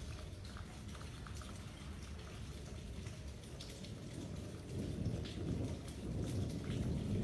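Rain falling, with scattered sharp drop ticks over a low rumble that grows louder in the second half.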